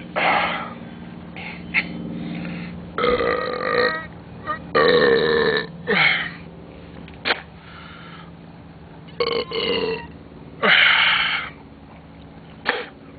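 A man burping again and again, a string of loud burps, some drawn out for about a second and others short.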